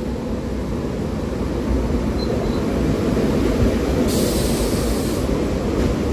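SEPTA Silverliner IV electric multiple unit rolling into the station alongside the platform, a steady rumble of wheels on rail that grows a little louder as the cars draw level. A brief hiss comes about four seconds in.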